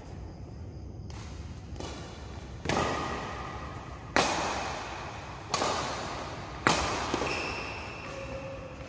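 Badminton rackets striking a shuttlecock in a doubles rally: four sharp smacks about a second and a half apart, each echoing in a large hall.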